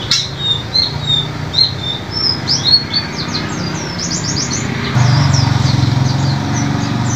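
White-eye (pleci) singing: a busy run of high chirps and short twittering phrases, with a quick series of steeply falling notes around the middle. A low steady hum runs underneath and grows louder about five seconds in.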